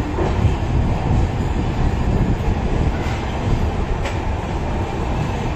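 Passenger train coaches rolling out of a station at low speed, heard from aboard at the coach doorway: a steady low rumble of wheels on rail, with a couple of faint clicks.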